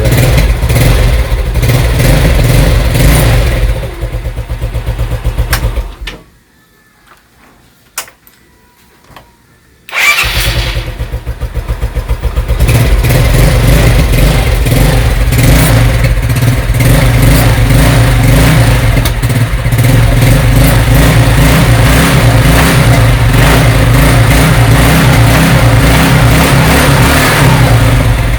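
Yamaha Mio Sporty 110cc scooter's single-cylinder four-stroke engine idling, cut off about six seconds in, then started again with one press of the electric starter about four seconds later and idling steadily. It starts at once with its carburetor freshly cleaned, the cure for its hard starting.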